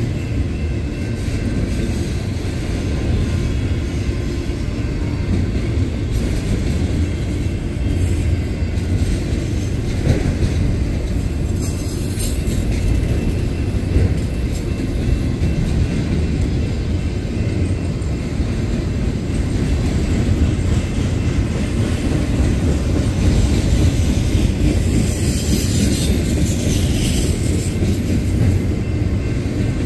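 Autorack cars of a Union Pacific manifest freight train rolling past: a steady, loud rumble of steel wheels on rail. Brief faint high wheel squeals come about midway and again near the end.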